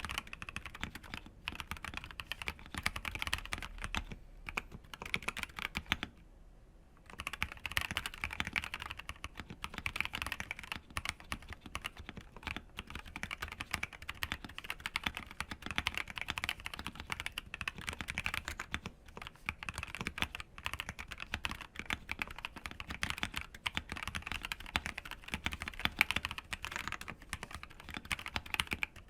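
Fast typing on a mechanical keyboard: an ePBT Yoke ABS double-shot keycap set on a KBD67 Lite with factory-lubed C3 Tangerine linear switches, a rapid run of key clacks. It breaks off briefly about six seconds in, then goes on.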